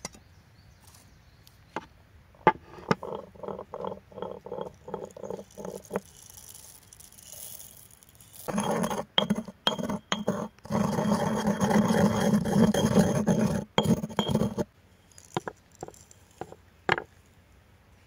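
Stone mortar and pestle crushing salt and peppercorns. First comes a run of about a dozen quick strikes that make the stone bowl ring, then several seconds of steady, loud grinding, and a few sharp taps near the end.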